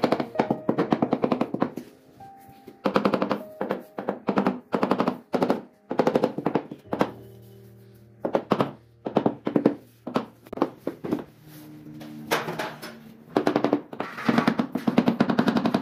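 Ceramic floor tiles being tapped down into a wet mortar bed with a hand tool, in repeated bursts of rapid knocks several times a second, with short pauses between bursts. Background music plays faintly in the gaps.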